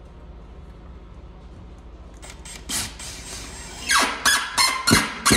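Cordless drill with a Phillips bit driving a screw into a wooden base in short bursts, pulling a zip tie tight. One brief burst comes a little before the middle, then about five quick whining bursts near the end.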